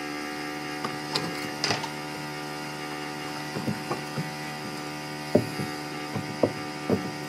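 Steady machine hum made of many even tones, with scattered knocks and clatter as a curved wood strip is handled and pressed up against overhead framing, and a few sharper knocks in the second half.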